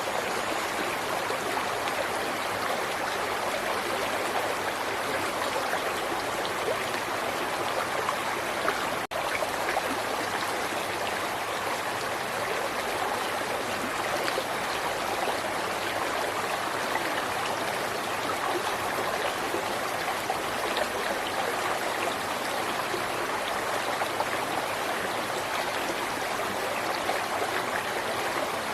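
River water flowing steadily, an even, unbroken rush of running water, with a momentary break in the sound about nine seconds in.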